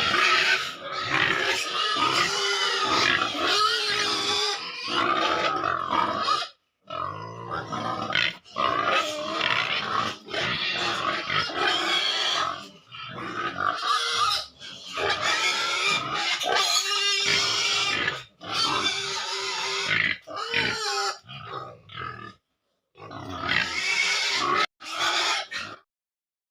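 Pigs in a pen grunting and squealing almost continuously. The sound breaks off abruptly to silence a few times and stops shortly before the end.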